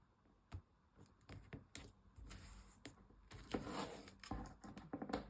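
Handling of washi tape and paper: a few light clicks and taps, then a crackling rustle of tape being peeled off its roll and laid along a page edge, loudest about four seconds in.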